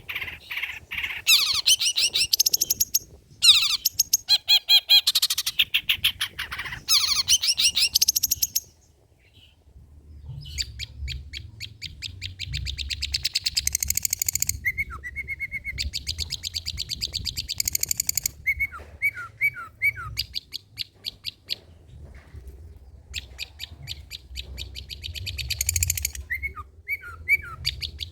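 Long-tailed shrike (cendet) singing: phrases of very fast, chattering high notes, with a short break about nine seconds in before the rapid phrases resume.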